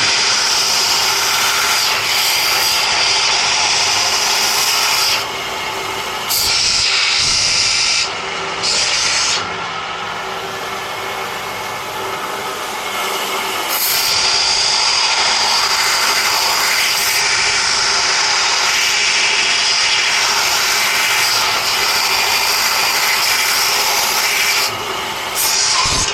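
Bench-mounted power sander grinding the edge of a steel lawn mower blade: a loud, steady grinding hiss whose level dips several times as the blade's contact with the abrasive changes.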